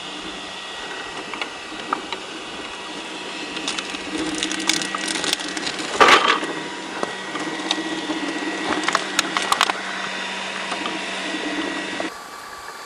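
RC4WD Trail Finder 2 scale RC rock crawler driving slowly over rocks, its electric motor and gearbox whining steadily. Tyres crunch and small stones click and rattle, with one loud knock about six seconds in.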